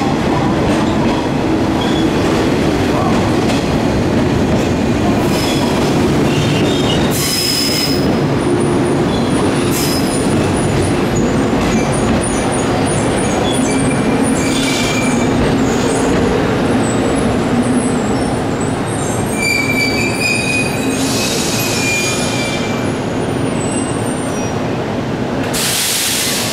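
JR 115-series electric multiple unit pulling into a station, running with a steady rumble. High-pitched squeals come and go, with several short hisses.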